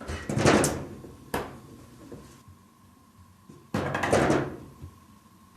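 Clattering knocks and bangs, like a cupboard door or object being knocked about: a noisy clatter at the start, a single sharp knock about a second later, and a second clatter a little before the end.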